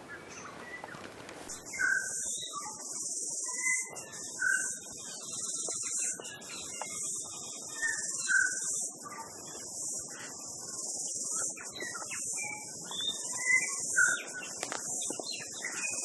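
Steady, shrill chorus of insects in the bush, starting about a second and a half in, with scattered short bird chirps and whistles over it.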